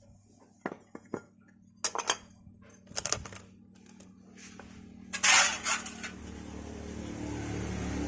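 Metal parts and tools clinking and knocking together in a string of sharp clinks, then a louder metallic rattle about five seconds in. A steady low hum builds up near the end.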